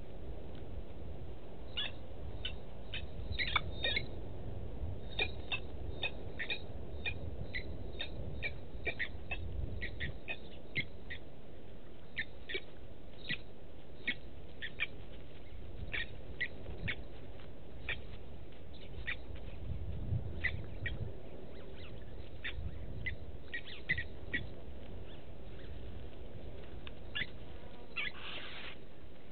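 Blacksmith lapwing giving short, sharp, high 'tink' calls, singly and in quick runs at irregular intervals, with a longer, harsher call near the end. A steady low rumble runs underneath.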